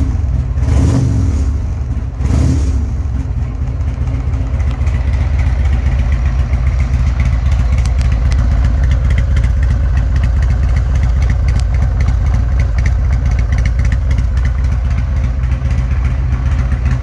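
Buell M2 Cyclone's 1203 cc air-cooled V-twin idling steadily, with two short louder noises in the first few seconds.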